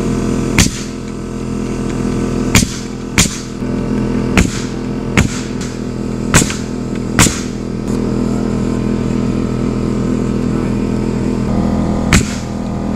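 Pneumatic framing nailer firing nails into cottonwood girt boards: about eight sharp shots at uneven intervals, most of them in the first seven seconds and one more near the end. A steady engine hum runs underneath.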